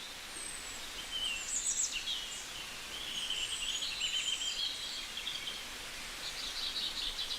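Several songbirds calling and singing over a steady outdoor hiss, with short chirps and a long buzzy trill a few seconds in.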